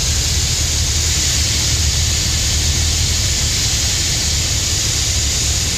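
Light aircraft's piston engine and the rush of air heard inside the cockpit: a steady low drone under a loud, even hiss, as the plane approaches a runway.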